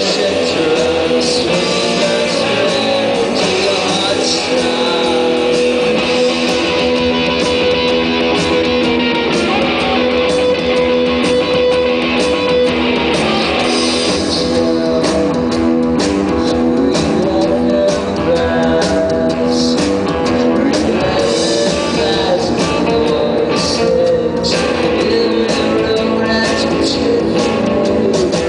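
Live rock band playing loudly, led by electric guitar. The music gets less bright about halfway through.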